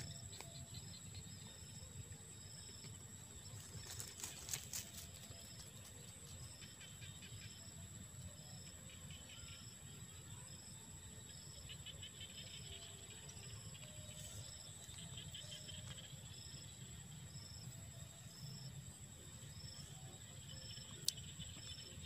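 Insects calling in a wetland: a steady high-pitched buzz with short, regular chirps about twice a second, over a low steady rumble. A cluster of clicks about four seconds in and one sharp click near the end.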